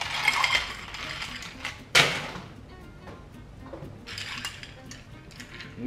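Ice cubes tipped from a scoop into a glass of Negroni, rattling and clinking, with one sharp loud clink about two seconds in. Later a bar spoon stirs the ice in the glass with light clinks.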